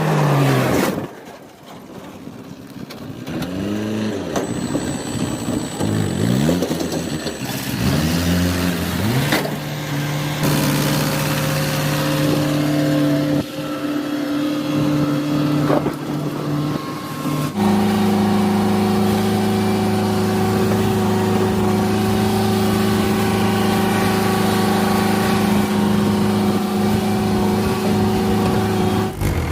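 Motor vehicle engine revving up and down several times, then running steadily at a constant speed.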